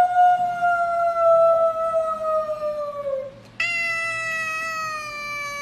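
Silver tabby cat giving two long, drawn-out meows, each slowly falling in pitch. The first ends about three seconds in, and the second follows after a short pause.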